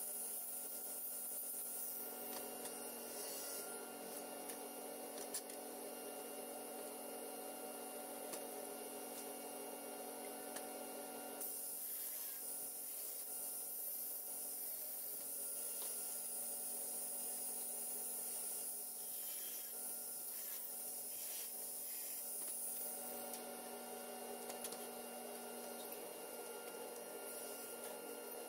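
A steady hum over a faint hiss, changing in tone about two seconds in, again near the middle and again near the end, with a few faint clicks.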